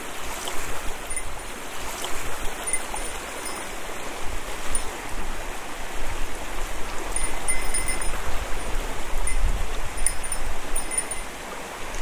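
Mountain stream flowing: a steady rush of water.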